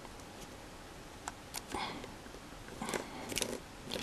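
Light clicks and scrapes of chopsticks handling small plastic model-kit parts: a few short clicks a little over a second in and a cluster of them around three seconds.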